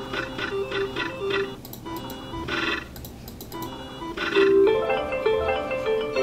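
Novomatic Power Stars online slot game sounds: electronic ticking as the reels spin, with short chimes as they stop. About four and a half seconds in, a rising stepped jingle plays as a stack of stars lands on the middle reel, which triggers a free re-spin.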